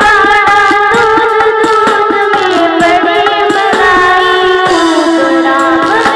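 Hindi devotional bhajan sung in a child's voice, a wavering held melody over instrumental accompaniment and a steady drum beat.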